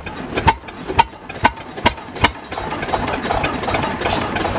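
Deutz stationary diesel engine running just after a cold start, its exhaust firing in sharp, even beats about two or three times a second. About halfway through the separate beats blur into a steadier, busier running sound.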